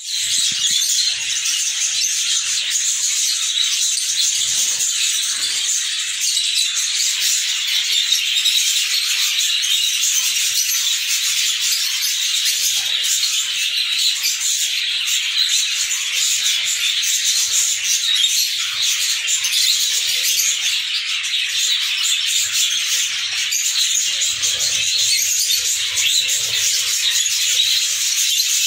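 A flock of budgerigars chattering, a steady unbroken mass of high chirps and warbles.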